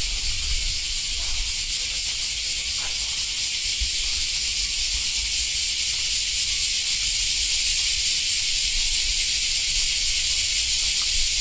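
A steady, loud, high-pitched hiss with a low rumble underneath and faint voices in the background.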